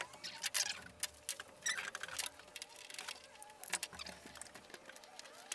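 Scattered light clicks, taps and scraping from carriage bolts, a wrench and a rag being handled on an aluminium composite roof panel, with now and then a faint squeak.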